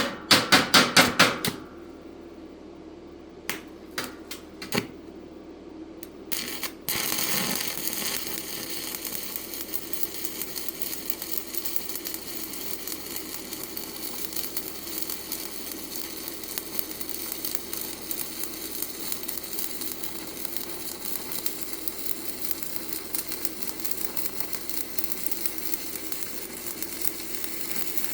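A quick run of sharp metal knocks, then a stick-welding arc struck about seven seconds in and burning steadily with a continuous crackle as a 1/8-inch 7018 electrode runs a pass.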